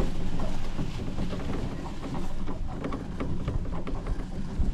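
Golf cart riding over rough ground: a steady low rumble with frequent rattles and knocks.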